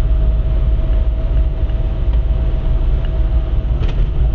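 Car driving along a paved road, heard from inside the cabin: a steady low rumble of road and engine noise with a faint steady whine over it, and a single brief click near the end.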